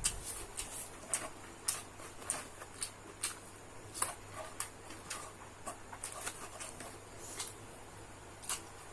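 Close-miked eating of fried rice: chewing with short, wet mouth clicks and smacks, irregular, about two a second.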